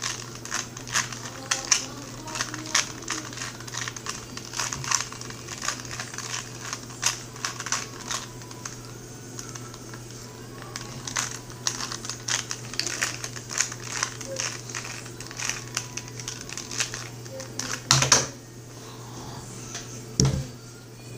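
2x2 Rubik's cube being turned fast by hand: a quick, irregular run of plastic clicks and clacks as the layers snap round. About eighteen seconds in the clicking stops with a louder knock, and a dull thud follows a couple of seconds later.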